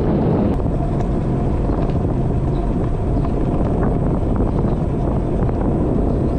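Steady wind rush and rumble on the microphone of a camera riding on a moving electric scooter, with a few faint rattles and ticks from the ride.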